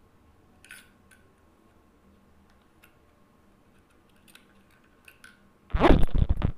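Small parts of a Hi-capa airsoft pistol being handled during reassembly: a few faint, light clicks. Near the end comes a loud, rough rubbing burst of just under a second as the frame is moved about.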